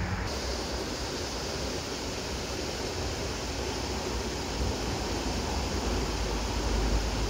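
Steady rush of road traffic, with the low rumble swelling near the end as a vehicle passes.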